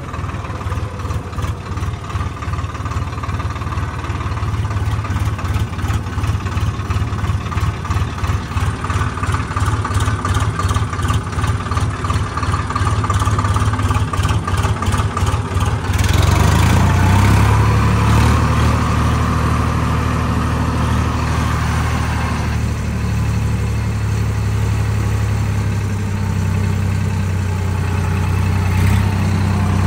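Swaraj tractor's diesel engine running while it tows a thresher. In the first half it has a fast pulsing beat. About halfway through the sound changes abruptly to a louder, steadier low drone.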